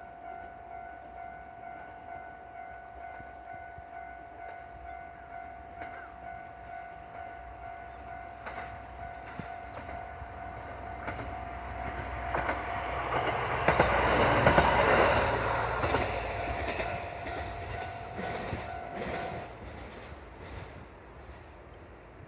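Japanese level-crossing warning bell ringing steadily while a single-car KiHa 122 diesel railcar approaches and passes over the crossing. The railcar is loudest about fourteen seconds in, with its wheels clacking over the rail joints, then fades as it moves away; the bell stops about nineteen seconds in.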